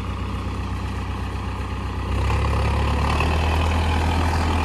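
Farmtrac tractor's diesel engine running steadily, then revving up and holding higher about two seconds in as the heavily loaded tractor strains to drive out of the spot where its wheels slipped and it got stuck on the slope.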